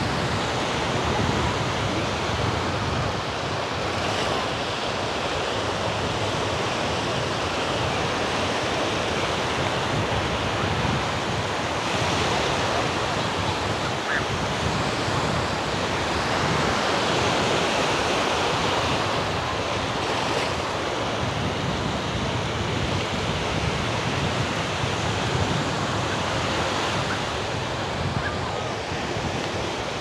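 Black Sea surf washing steadily onto the beach, with wind buffeting the microphone.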